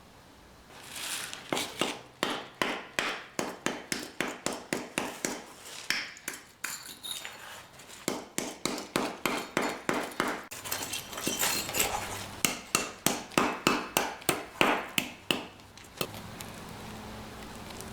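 A hammer striking repeatedly and quickly, about three to four sharp ringing blows a second, with a brief lull about eight seconds in; the blows stop about three seconds before the end.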